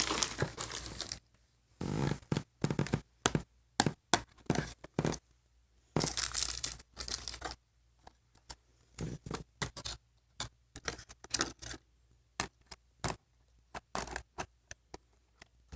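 Plastic toy packaging being handled: bursts of rustling and crinkling, then scattered small clicks and taps as bags and pieces are sorted.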